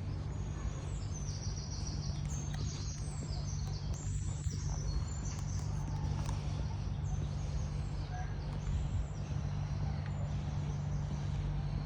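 Small birds chirping in quick runs of short, high notes over a steady low hum.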